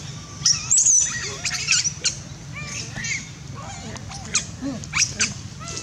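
Short, high chirping and squeaking animal calls, several in quick succession, over a low steady hum.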